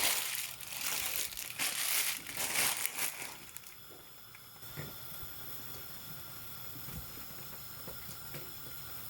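Plastic packaging crinkling and rustling for about three and a half seconds, then only a faint steady hum.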